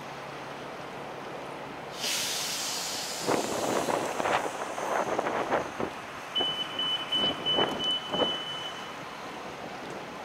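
City street traffic noise. About two seconds in a sudden hiss of air starts, followed by a run of irregular knocks and rumbles. Partway through, a high electronic beeping pulses rapidly for a couple of seconds.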